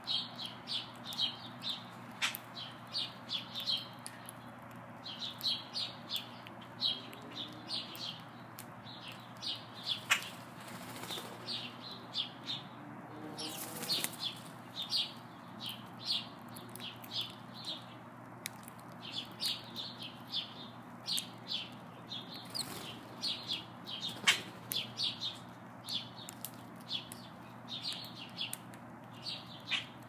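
Sparrows chirping in quick series of short, high chirps, several a second, with brief pauses between bouts. A few short rushes of noise cut in, among them a louder one about two-thirds of the way through.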